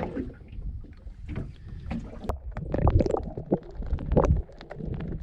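Water sloshing, gurgling and splashing around a camera held at and below the surface, heard muffled and rumbling while it is underwater, with irregular splashes and knocks beside a hooked flathead.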